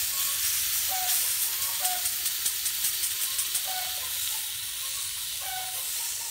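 Marinated meat sizzling on the very hot plate of an electric heat-welding machine used as a grill, with a steady hiss and a run of crackling pops in the middle as tongs turn the pieces.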